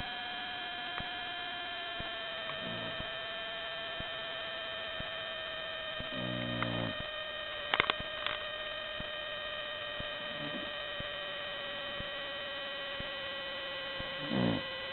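Snoring, one breath about every four seconds, the loudest a rattling snore a little before halfway, under a steady electrical hum with several high whining tones. A couple of faint clicks come just after the loudest snore.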